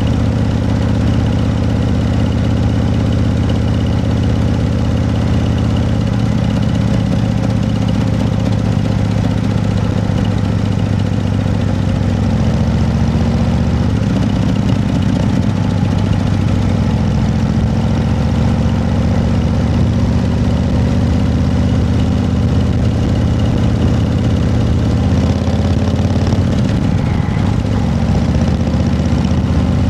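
An engine running steadily, its low pitch shifting slightly now and then.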